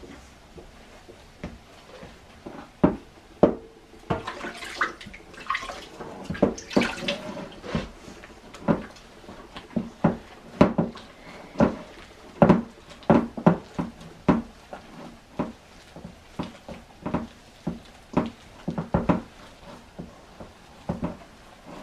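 Hands squeezing and mixing wet tortilla dough in a stainless steel bowl: irregular wet squelches and slaps, about one or two a second.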